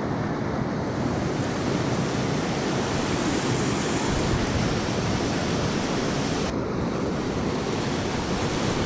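Whitewater rapids of a fast-moving, flooded river rushing over rocks: a steady, unbroken roar of water.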